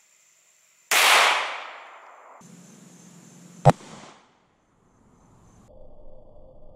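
A single 9mm shot from a Glock 43 pistol about a second in: a sharp crack that rings off and fades over about a second. A second, shorter sharp crack comes a little past halfway.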